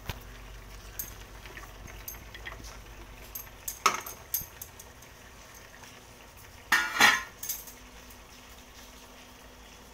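Metal kitchen utensils clinking and clattering as a steel plate and bowl are handled: a light clink about a second in, a sharper clatter just before four seconds, and the loudest clatter of metal around seven seconds.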